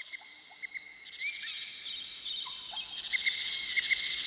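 Tropical rainforest chorus: a steady high-pitched insect drone with many short, repeated chirping calls over it, growing louder over the first couple of seconds.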